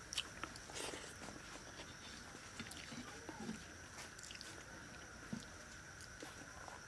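Faint close-up eating sounds of rice and fish curry eaten by hand: scattered small clicks, soft smacks and chewing, over two steady high-pitched background tones.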